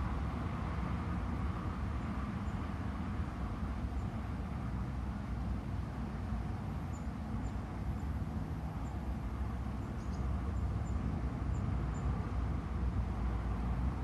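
Wind blowing through birch trees, with a steady low rumble of wind on the microphone under the rustling, growing a little stronger near the end.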